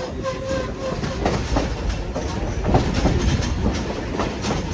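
Passenger train coach rolling along the track: a steady low rumble with irregular clacks and knocks of the wheels over the rails, and a faint steady tone in the first second.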